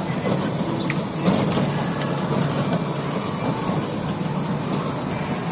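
Steady rumble of a small ride-on train running.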